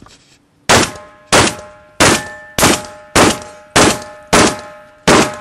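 Eight shotgun shots fired in quick succession, nearly two a second, each followed by the ringing of struck steel targets.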